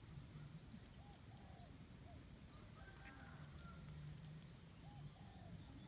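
Faint outdoor ambience. A small bird repeats a short, high rising chirp roughly once a second, with a few fainter lower calls mixed in.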